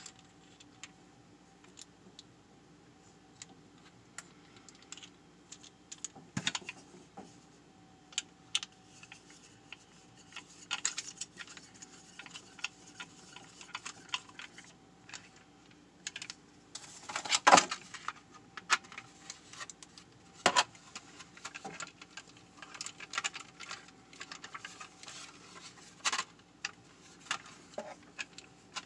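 Small plastic and metal parts being handled and fitted together: irregular clicks, taps and rattles as a mini tripod stand, its ball head and an LED light panel are assembled. The loudest clatter comes about two thirds of the way through, all over a faint steady hum.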